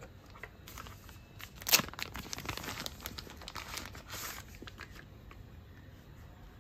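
Crinkling rustle of a thin protective sleeve being slid off a small handheld camera, in a run of rustles from about one second in to about four and a half seconds, loudest just before two seconds.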